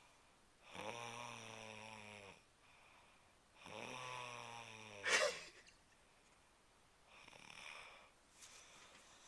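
A woman snoring in her sleep: two long, low-pitched snores, the second ending in a sudden loud snort about five seconds in, then a softer breath near the end.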